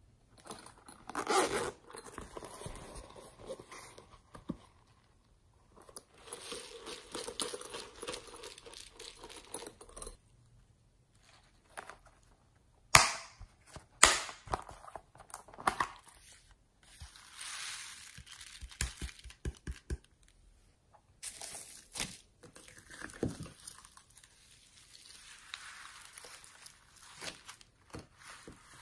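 Slime being handled by hand, squeezed, stretched and poked, in bursts of crackly, clicking noise separated by short pauses. Two sharp pops about halfway through are the loudest sounds.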